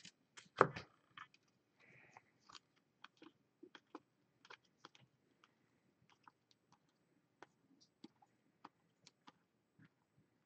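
Glossy football trading cards being flipped through by hand one at a time: a string of faint, irregular clicks and snaps as the stiff cards slide off one another, with one sharper snap about half a second in.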